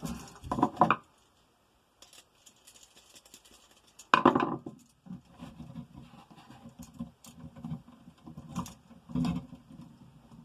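Small clicks, rattles and scrapes of an electrical outlet and its stiff wires being worked and pushed into a tight outlet box, with one louder bump about four seconds in.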